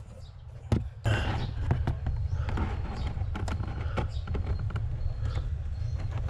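Cabin air filter being pulled out of its plastic housing behind the glove box: a sharp click under a second in, then a steady scraping and rustling of the filter against the housing, dotted with small knocks.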